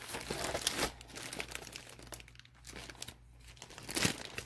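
A bag rustling as its contents are pulled out, with a sharp knock about four seconds in.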